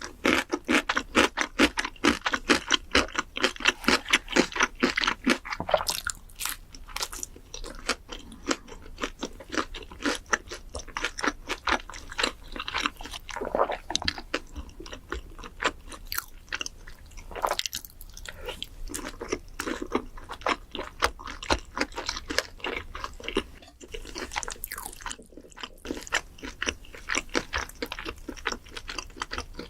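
Close-up chewing and crunching of food, in quick regular bites, busiest in the first few seconds and then more spaced out.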